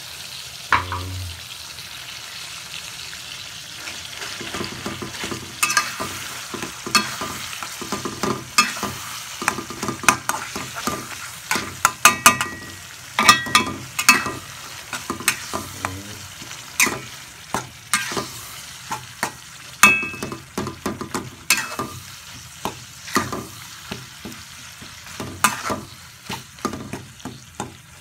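Ground chili and tomato sambal sizzling in a metal pan while a metal spoon stirs it. The sizzle is steady for the first few seconds; after that, the spoon repeatedly knocks and scrapes against the pan with short ringing clinks.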